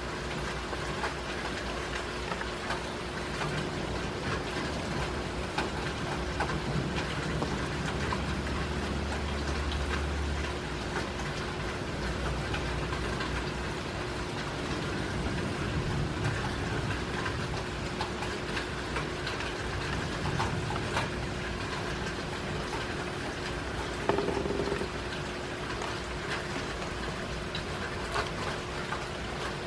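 Steady rain falling, with a low rumble about a third of the way in and a faint steady hum underneath.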